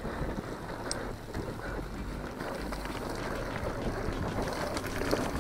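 Mountain bike rolling over a dirt trail: a steady rough rumble of tyres and bike rattle, with wind noise on the handlebar camera's microphone. A brief high squeak about a second in.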